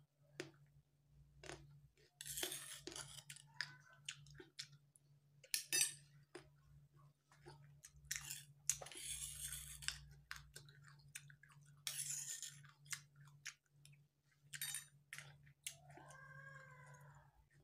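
A person chewing and crunching mouthfuls of parijoto-berry rujak in an irregular run of bites, smacks and slurps, with small clicks. Near the end there is a brief pitched voice sound.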